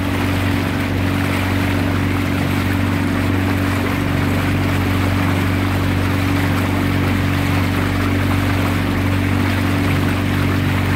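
Boat outboard motor running steadily at an even speed, a constant low hum under a steady rushing hiss of water and wind.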